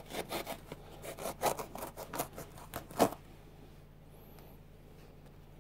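A Nike Air Max 90 sneaker's fabric upper and stitching being ripped apart by hand: a fast, uneven run of rips for about three seconds, ending in the loudest one, then stillness.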